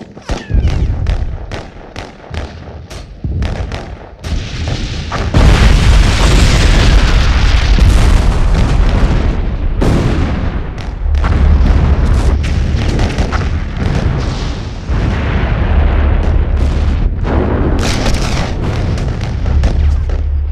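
Added war-film battle sound effects: a quick string of gunshots for the first few seconds, then from about five seconds in a loud, continuous din of explosions and booms with gunfire cracking over it.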